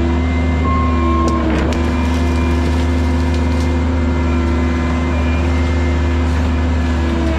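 Diesel engine of a Cat 306 CR mini excavator running steadily at working speed, with a brief knock or clatter about a second and a half in.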